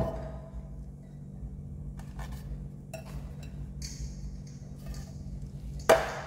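A metal loaf pan knocking against the work surface twice, once at the start and again near the end, each a sharp clank that rings briefly. Between the clanks come soft clicks and a short rustle as the dough is pressed into the pan.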